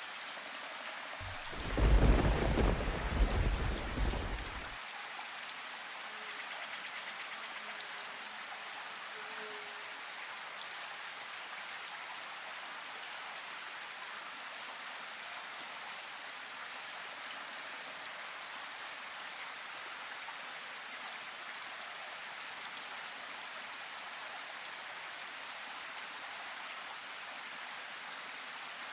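Steady rain falling. About a second in, a roll of thunder rumbles for about three seconds, louder than the rain, then dies away, leaving the even patter.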